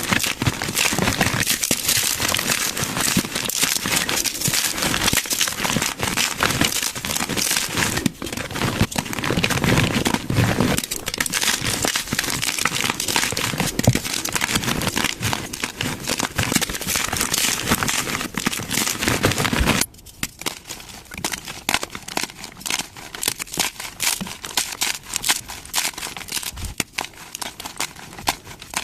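Blocks of colourful gym chalk crunching and crumbling as they are crushed, a dense run of crisp crackles. About twenty seconds in it cuts abruptly to a quieter, sparser crumbling.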